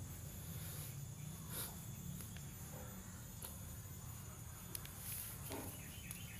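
Faint outdoor background: a steady high-pitched insect drone, like crickets, over a low rumble, with a few soft clicks.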